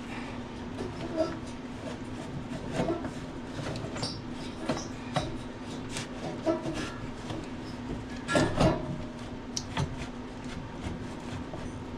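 Scattered knocks, scrapes and rubbing of metal parts as a turbocharger is worked loose in a diesel engine bay, with a louder clatter of knocks about eight and a half seconds in. A steady low hum sits underneath.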